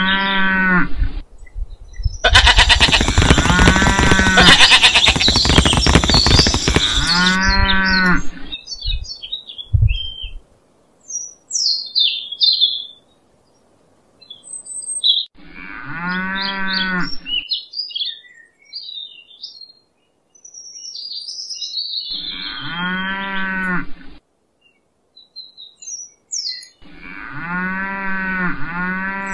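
A cow mooing again and again, about six drawn-out moos of a second or two each, with bird chirps in the gaps between them. From about two seconds in, a loud rough noise runs for about five seconds under the moos.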